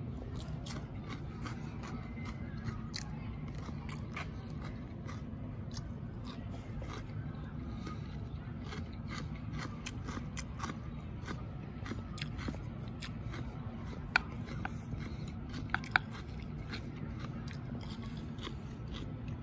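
Close-up chewing and biting of crunchy raw cucumber salad: many small, irregular crunches and clicks, with two sharper clicks in the last few seconds, over a steady low background hum.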